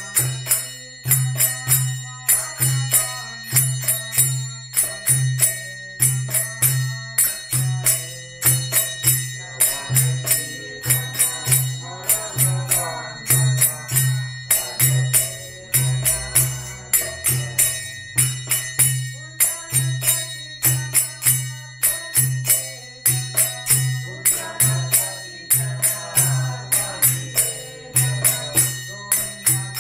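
Kirtan: devotional chanting with jingling hand cymbals and a low accompaniment keeping a steady beat of about two to three strokes a second, with voices singing at times.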